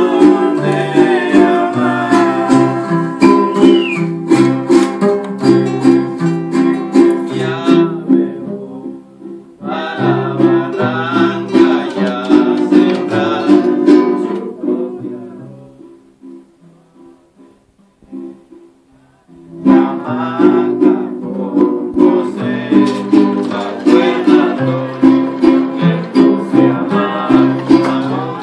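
Acoustic guitar and a smaller strummed string instrument played together, with a voice singing along. The music breaks off briefly about 9 seconds in, then goes quiet from about 15 seconds in and starts again near 20 seconds.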